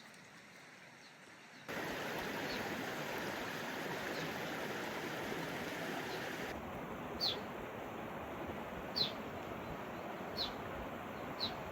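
Steady rush of a mountain stream or cascade, starting abruptly about two seconds in. In the second half, four or five short, high chirps falling in pitch come every second or two over the water noise.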